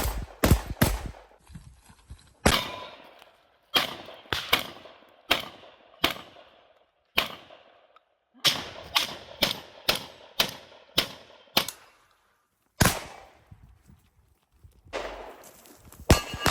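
Shotgun fired in quick strings, shots roughly a third to half a second apart, broken by short pauses between groups. A final pair of shots comes near the end.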